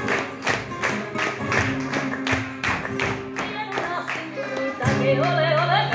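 Sevillanas flamenco music with hand-clapping (palmas) striking a steady beat about three times a second; a singer's voice comes in a little after four seconds in.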